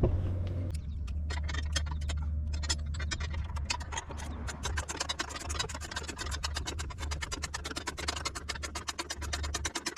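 A long run of sharp, regular clicks over a steady low hum, coming faster from about four seconds in.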